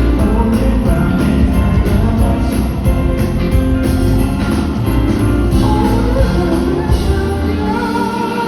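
Live band playing a Christmas medley with sleigh bells jingling in a steady beat. The bass drops away near the end.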